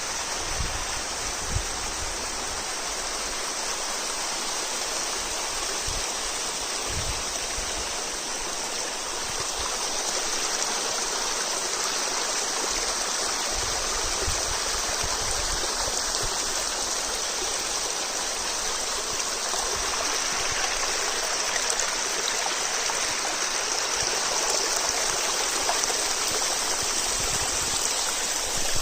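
Water of a mountain spring stream flowing steadily, with a few brief low rumbles underneath.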